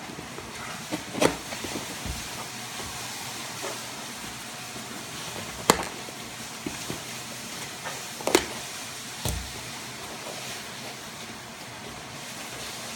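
Packing tape on a cardboard shipping box being slit with a small knife and the flaps pulled open: a few sharp scrapes and clicks, loudest about six and eight seconds in, and a dull knock just after, over a steady hiss.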